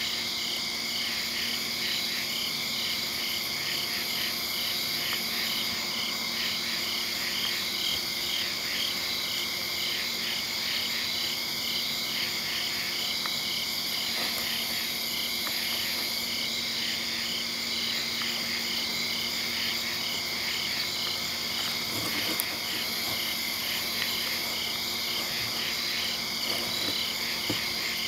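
Steady night chorus of calling insects and frogs: a pulsing call repeating several times a second over continuous high-pitched trilling.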